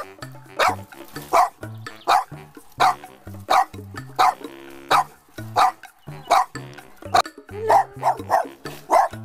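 Small black-and-white bat-eared dog barking over and over, a sharp bark a little more often than once a second, over background music with a steady bass line.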